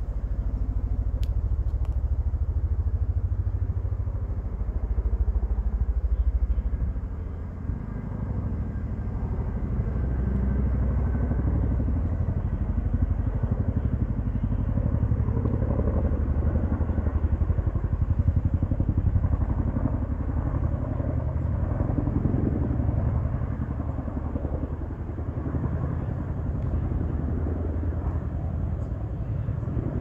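Boeing CH-47 Chinook tandem-rotor helicopter in flight: a loud, low, steady noise from its two rotors and turbine engines, dipping briefly about seven seconds in.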